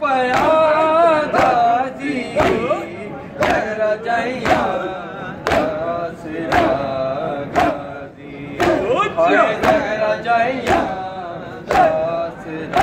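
Men chanting a Punjabi noha, a Shia lament, with hands striking chests in unison (matam) about once a second as sharp slaps.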